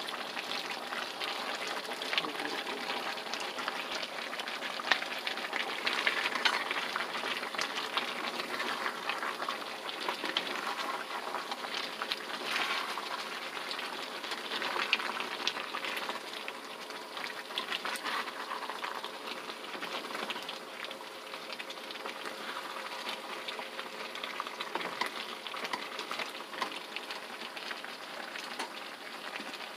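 A pan of chicken and vegetables in chili-paste sauce sizzling and bubbling on the heat, with a wooden spatula stirring through it, making small clicks and scrapes throughout.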